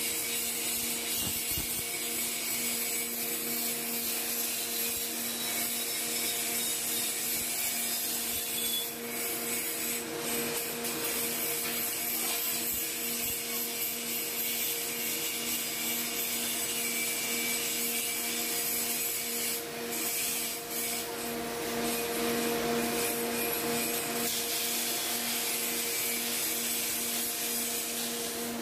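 Grinding machine running: a steady motor hum under an even abrasive grinding hiss, dipping briefly twice.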